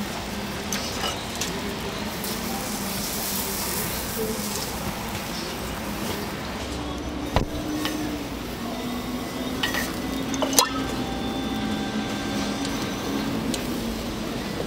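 Bungeoppang batter sizzling in hinged cast-iron fish-shaped molds over gas burners, with the clink of a metal batter dispenser and spatula against the iron. Two sharp clinks stand out, about seven and ten and a half seconds in.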